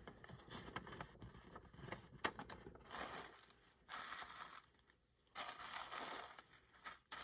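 Faint rustling and crinkling of tissue paper being handled by hand, in several short bursts, with small taps and clicks from handling paper.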